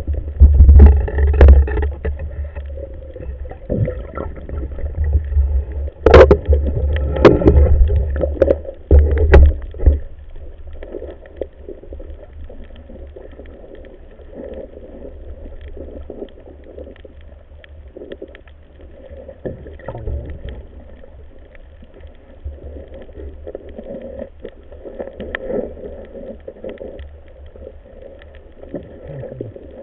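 Muffled underwater sound picked up by a camera in its housing: low rumbling water movement with knocks and a sharp click about six seconds in, settling after about ten seconds into a quieter steady underwater rumble.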